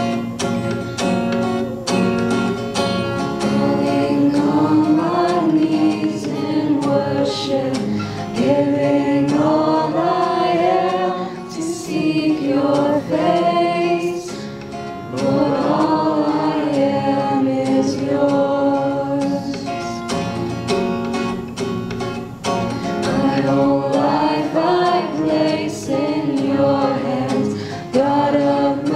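A woman singing a slow song while strumming a steel-string acoustic guitar.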